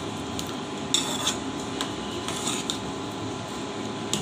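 Steel ladle scraping and clinking against a stainless steel bowl while stirring a thin semolina batter, with a few sharper clinks about a second in and again midway.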